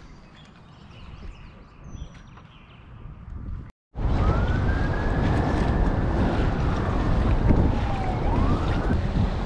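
Faint water noise around a kayak, then after a cut about four seconds in, loud wind buffeting the microphone over choppy water. A siren wails slowly up and down over the wind.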